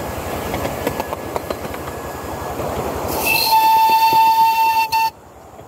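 Miniature steam locomotive modelled on GWR King class 'King George V' running with a steady chuffing clatter. About three seconds in, its steam whistle sounds one steady, multi-toned blast of about two seconds that cuts off abruptly.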